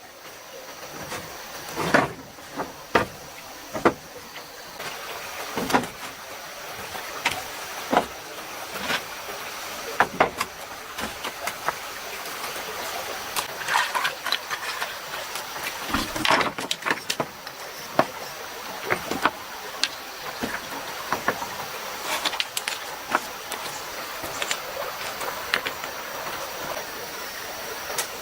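Stream water running steadily, with irregular sharp knocks and taps every second or two.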